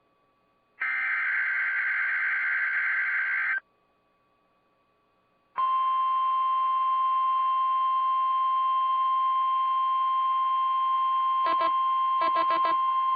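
Emergency Alert System broadcast tones from NOAA Weather Radio. First comes a buzzy, screeching burst of digital SAME header data, about three seconds long. After a short silence, the steady 1050 Hz warning alarm tone sounds from about five seconds in, with two brief beeping chirps over it near the end. This is the start of a severe thunderstorm watch alert.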